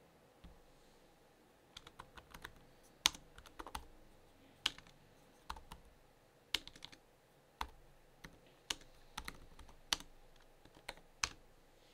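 Typing on the ASUS Zenbook 14 UX3405 laptop's keyboard: irregular key clicks starting about two seconds in, with a few much louder taps standing out among the softer ones. A soft knock comes about half a second in.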